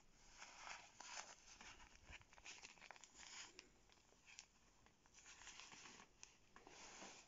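Faint rustling and crinkling of a shiny puffer jacket's glossy shell as a hand rubs and squeezes it, in a run of short, uneven swishes with a few small clicks.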